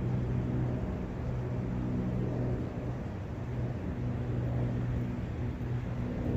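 Forest ambience of running brook water and wind, a steady low rumble with a faint hum that comes and goes.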